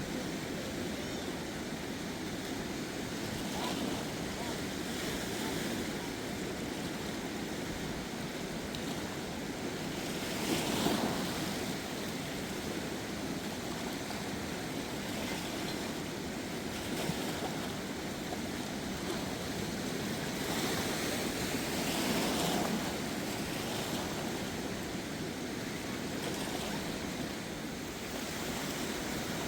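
Steady rushing roar of the flooded Khersan River, swelling louder briefly about eleven seconds in and again about twenty-two seconds in.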